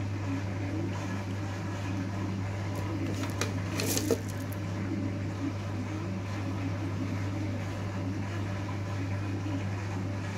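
Cat purring steadily in close-up while being stroked, a low even rumble that swells and fades in a slow rhythm. A brief scratchy rustle about four seconds in.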